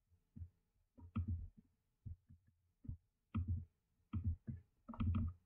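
Computer mouse clicking in irregular clusters, with soft thumps mixed in.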